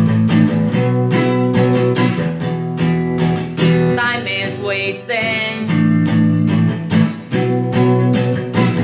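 Stratocaster-style electric guitar strummed in a steady rhythm of chords. About four seconds in, a short wordless sung phrase bends over the chords.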